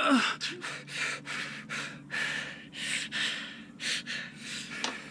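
A man breathing fast and heavily in short, noisy breaths, about two a second, as if panting in shock.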